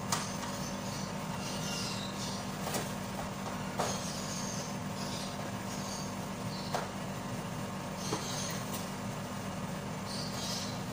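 Light scrubbing and handling of a wire electric-fan guard, with a few sharp knocks scattered through, over a steady low hum.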